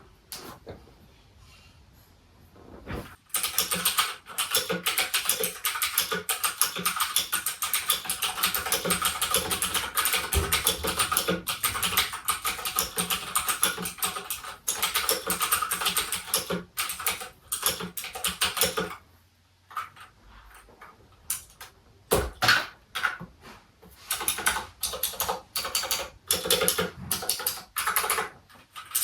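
Mechanical keyboard with clicky Gateron Blue switches being typed on fast: a dense run of sharp key clicks starting about three seconds in, a pause of about three seconds around two-thirds of the way through, then shorter bursts of typing.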